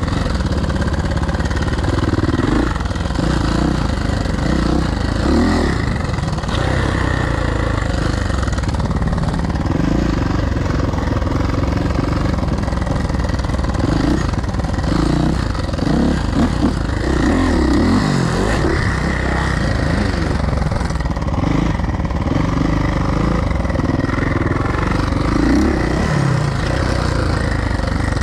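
Suzuki dirt bike engine being ridden hard, revving up and dropping back again and again as the rider accelerates and shifts, its pitch climbing and falling every second or two.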